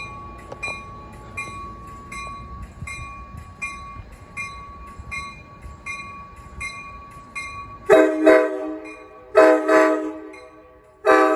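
A train bell dinging about every three quarters of a second over a low rumble, then the locomotive horn sounds as the train pulls out: two short double blasts about eight and nine and a half seconds in, and a long blast starting near the end.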